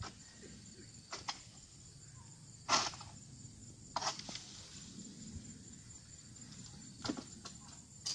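A long-poled palm harvesting sickle working in the crown of an oil palm: a few scattered sharp knocks and rustles, the loudest about three seconds in. A faint steady high insect drone runs underneath.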